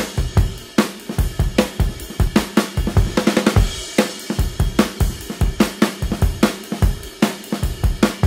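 Background music: a drum kit playing a fast, steady beat with snare, hi-hat and cymbals over a bass line.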